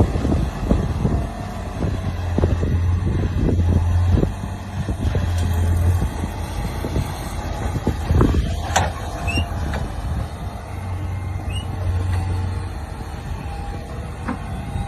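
A heavy vehicle's engine running steadily, with many knocks and clanks in the first few seconds, then fewer.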